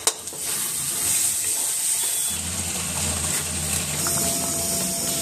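Spice masala frying with a steady hiss in an iron kadhai. About two seconds in, a deeper rushing joins as water goes in and the curry bubbles.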